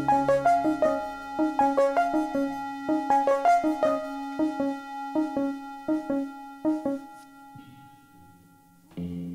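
Music: a keyboard playing a run of short struck notes over a held low note. The notes slow and die away about seven seconds in, and a short low note sounds near the end.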